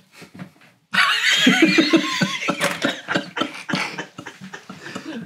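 Men laughing hard in high-pitched, wheezing bursts, starting about a second in.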